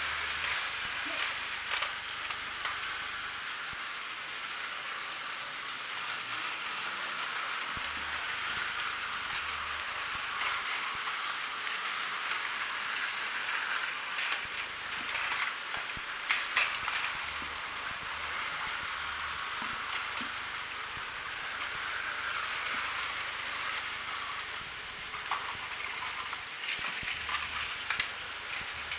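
Many battery-powered Takara Tomy Plarail toy trains running at once on plastic track: a steady, dense whirring clatter of small motors and wheels, with scattered clicks.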